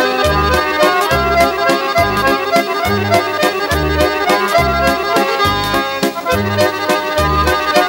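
Accordion playing a lively folk dance tune, with an oom-pah bass note about twice a second under the melody.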